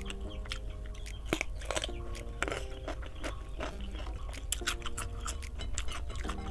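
Close-miked chewing with many sharp crunches and mouth clicks as a person eats squid, rice and cucumber. Soft background music with sustained notes plays underneath.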